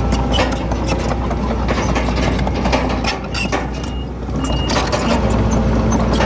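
Diesel engine of heavy earthmoving machinery running steadily, with clattering and rattling throughout. Two short, high beeps sound near the middle.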